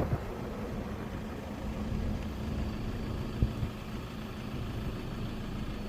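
Vehicle engine idling steadily, with a single short knock about three and a half seconds in.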